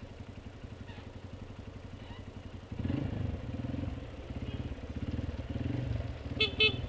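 Motorcycle engine ticking over at idle, then opened up about three seconds in as the bike pulls forward between stopped cars. Two short horn beeps near the end.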